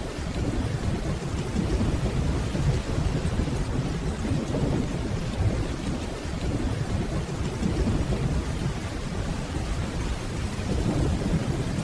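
Steady rainfall with a continuous low rumble of distant rolling thunder underneath.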